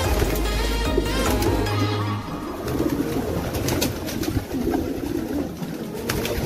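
A flock of racing pigeons cooing continuously in a loft, with short bursts of wing flapping as birds take off. Background music fades out about two seconds in.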